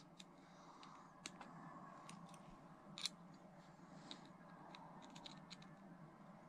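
Faint, scattered clicks and scrapes of a multitool's pointed blade working into a metal bottle cap, punching a hole near its rim; one sharper click about three seconds in.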